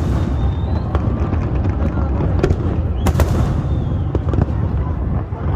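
Fireworks going off: a handful of sharp bangs, the loudest about three seconds in with a crackling tail, over a steady low rumble.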